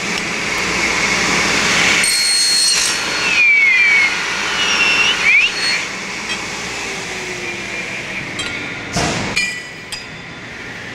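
Aluminium tubing being cut and handled at a cut-off saw. A rushing noise comes first, then metallic clinks and ringing, squealing scrapes of tube on metal, and a single sharp clank about nine seconds in.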